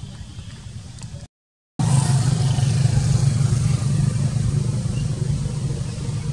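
Steady low engine rumble, like a motor vehicle running off to one side. It cuts out for about half a second, a little over a second in, then comes back louder.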